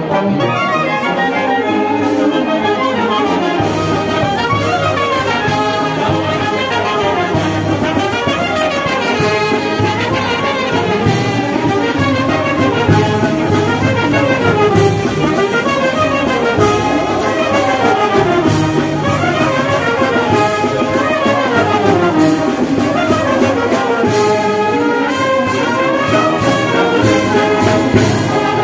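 Brass band music, trumpets and trombones playing a melody over a steady beat.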